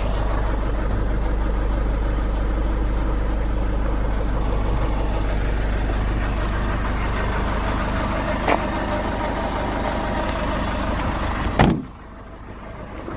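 2.5-litre diesel engine of a Nissan NV350 Caravan idling steadily with an even hum. There is a light click about eight and a half seconds in, then a loud thud near the end, after which the engine sound drops away.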